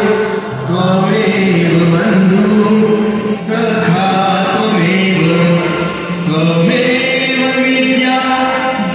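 Devotional aarti being sung, a slow chant-like melody with long held notes.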